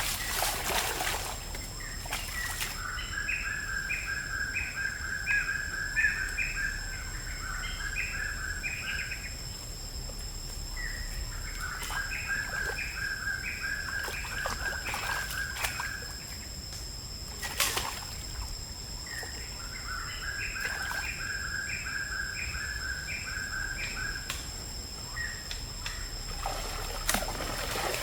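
A bird calling in three long runs of quickly repeated notes, about two notes a second, with short pauses between the runs. A steady high-pitched tone runs underneath.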